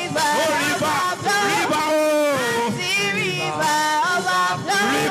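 Live worship singing: several voices hold and bend long notes of a slow chant, with no clear words.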